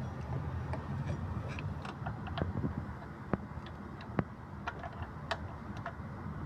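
Scattered light metallic clicks and taps of tools and parts being handled while the belt tensioner pulley is refitted, over a steady low hum.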